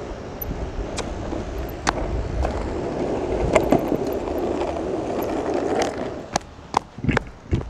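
Skateboard wheels rolling over a concrete parking deck: a steady rumble with sharp clacks every second or so. About six seconds in the rolling dies down, and several louder knocks follow.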